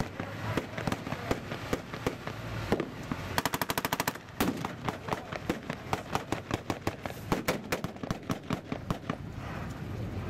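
Blank gunfire from a mock battle: scattered rifle shots all through, with one rapid machine-gun burst lasting under a second about three and a half seconds in.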